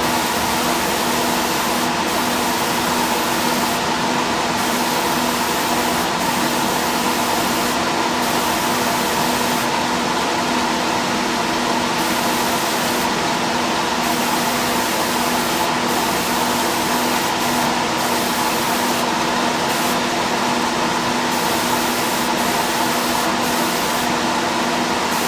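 Steady hum and hiss of spray-booth air movement with a constant pitched drone, overlaid by the hiss of a paint spray gun applying a coat of single-stage urethane; the highest part of the hiss cuts out briefly every second or two as the trigger is released between passes.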